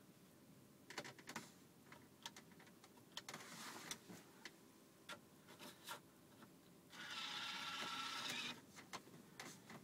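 A few light clicks and taps, then about a second and a half of whirring from a Siemens VDO digital tachograph's card slot, its small motor drawing in the driver card.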